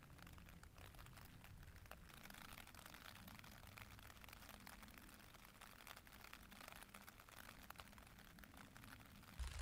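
Near silence, with faint scattered ticking of light rain on the tent's fly sheet. A sudden louder low rumble starts right at the end.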